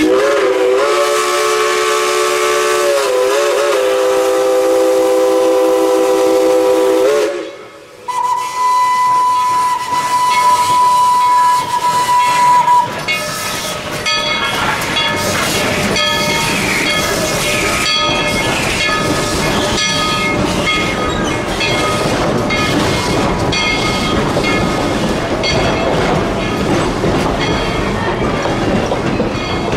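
Steam locomotive whistle blowing a long chord of several notes for about seven seconds, with a brief dip in pitch partway through. After a short break a single steady high whistle note sounds for about five seconds. The train then runs on with steady steam hiss and rolling noise as the coaches pass.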